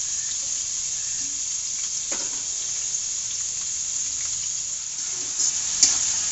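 Chopped onions sizzling steadily in hot oil in a metal kadai, at the start of frying them until brown. Near the end a spatula scrapes and knocks against the pan a few times as stirring begins.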